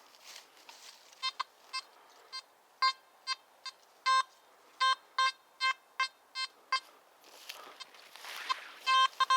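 Nokta Makro Simplex Plus metal detector giving a dozen or more short beeps at one pitch at irregular intervals as its coil sweeps over ground full of small metal scrap. Nearly every pass sets it off: the sign of heavily littered, trashy ground.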